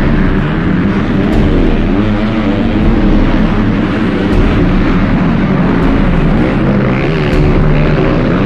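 Motocross bike engines revving hard and rising and falling in pitch as riders come past one after another on the dirt track.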